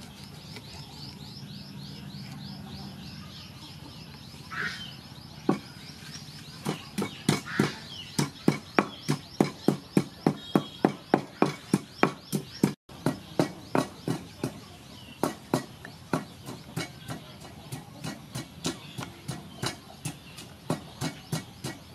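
A bird chirping in a quick repeated series, then a wooden pestle pounding in a wooden mortar. The thuds start about five seconds in and go on at a steady two to three a second, growing softer in the last few seconds.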